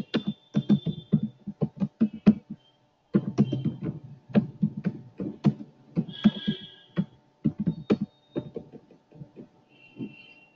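Computer keyboard typing: a quick run of keystroke clicks with a short pause about three seconds in.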